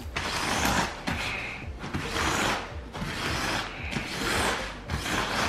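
A Deerfamy ultralight inflatable sleeping pad being pressed flat in repeated pushes, about one a second. Each push makes the nylon crinkle and rushes air out through the pad's open deflation valve.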